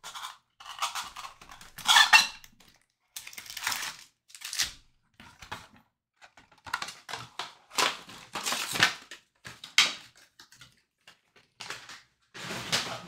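Trading-card packs and packaging being handled: irregular bursts of crinkling and rustling wrapper and cardboard with short pauses between, the loudest about two seconds in.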